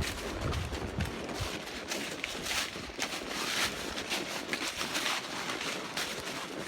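A horse's hooves stepping along a dirt trail at an uneven pace, each footfall a short crunch, with a few duller thumps in the first second or so.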